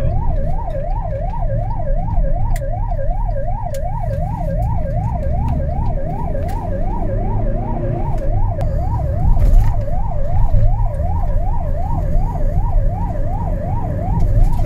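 Emergency vehicle's electronic siren on a fast yelp, its pitch sweeping up and down about three times a second without a break, heard from inside the vehicle's cab over a steady low engine and road rumble.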